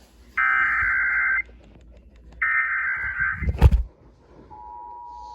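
Emergency Alert System SAME header data: two warbling digital bursts about a second long each, with a sharp knock near the end of the second. A steady EAS attention tone starts about four and a half seconds in, announcing the next warning.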